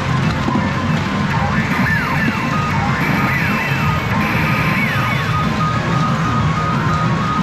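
Pachinko machine's electronic music and game sound effects, with short melody notes and several quick falling-pitch chirps over a dense low rattle.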